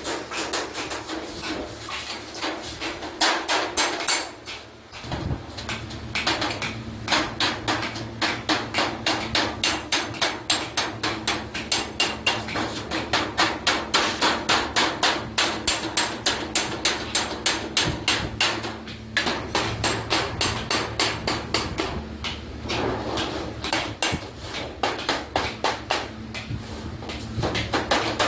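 Hammer striking sheet iron in quick, steady blows, several a second, with a brief pause about five seconds in.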